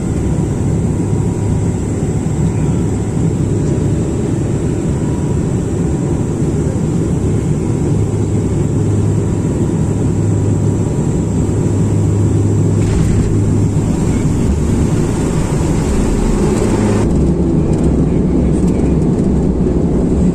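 Cabin noise of a turboprop airliner landing: the engines and propellers drone steadily as it comes in over the runway and rolls out. The drone gets a little louder about two-thirds of the way in, and a high hiss cuts off sharply soon after.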